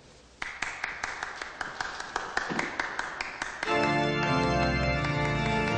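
Hand clapping: a steady run of claps about five a second over lighter scattered applause. About three and a half seconds in, music with sustained held chords comes in and takes over.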